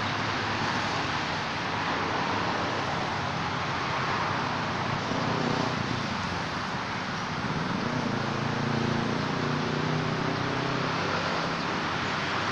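Steady road-traffic noise, with a vehicle engine's hum rising and falling about halfway through.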